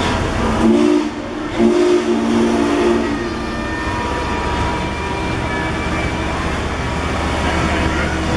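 Passenger train cars rolling slowly past with a steady low rumble of wheels on rail. About a second in, the train's deep chime whistle sounds twice: a short blast, then a longer one.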